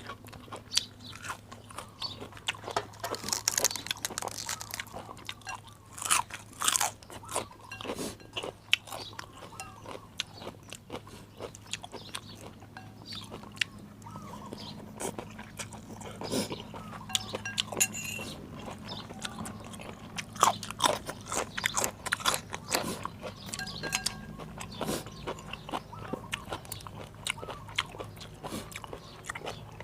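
A person eating close to the microphone: irregular crunching bites and chewing, over a faint steady low hum.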